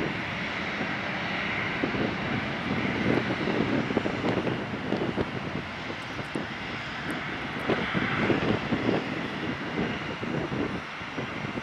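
Bombardier CRJ900's two rear-mounted General Electric CF34 turbofans at takeoff thrust as the jet begins its takeoff roll: a steady, loud rushing jet noise with a ragged, fluttering rumble underneath.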